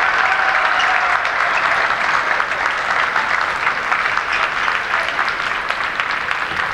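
Arena audience applauding after a point, many hands clapping at once, easing off slightly in the second half.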